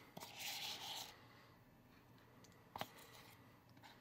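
Soft scraping of a small spatula against a mixing bowl as cake batter is scraped out into a pan, loudest for about a second near the start, with one light click near three seconds in.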